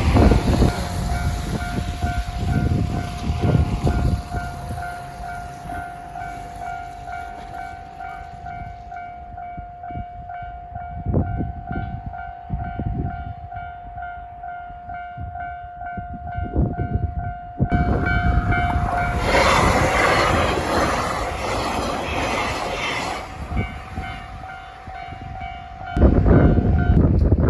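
Japanese railway level crossing's electronic warning bell ringing in a fast, even repeat, stopping just before the end. About 18 seconds in, a train runs through the crossing with a loud rush lasting around five seconds. Wind buffets the microphone at the start and again near the end.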